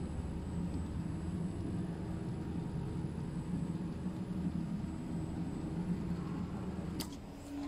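Large automatic CNC sewing machine for upholstery leather running, a steady, uneven mechanical rumble from its head and frame drive, with a sharp click about seven seconds in.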